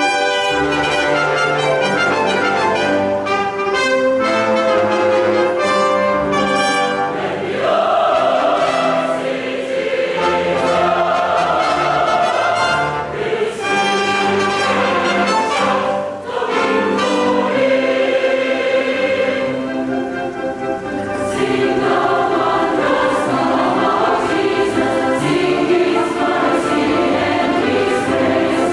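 Large mixed choir singing with instrumental accompaniment. The accompaniment plays alone in short, detached notes for the first several seconds, then the choir comes in and sings on.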